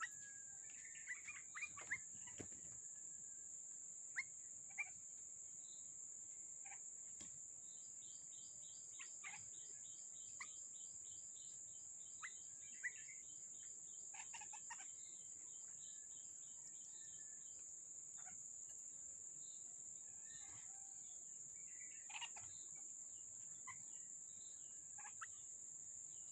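Birds chirping with scattered short calls and a rapid repeated trill lasting about ten seconds in the middle, over a steady high-pitched whine.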